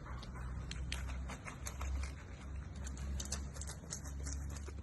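Irregular light taps and clicks over a low steady rumble.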